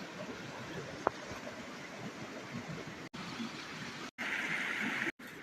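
Rushing mountain stream, a steady hiss of running water, heard across several short clips joined by abrupt cuts, with one sharp click about a second in.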